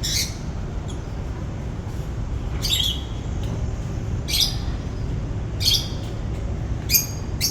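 A bird giving a short, harsh call five times, about once every second and a half, over a steady low background rumble.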